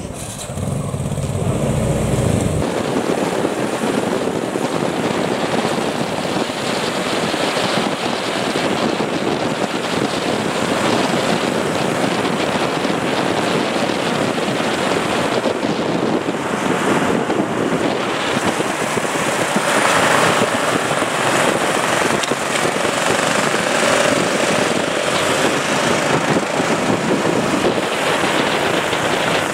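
Motorcycle engines running as the bikes ride along, mixed with a steady rush of wind on the microphone.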